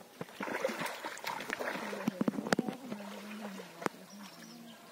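Water splashing and sloshing as people wade through a shallow muddy pond and drag a net through it, with scattered short splashes.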